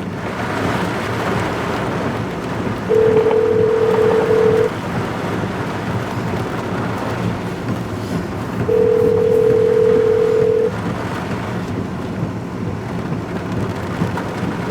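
Ringing tone of an outgoing phone call: two steady rings, each about two seconds long and about six seconds apart, over a constant hiss of wind-driven rain.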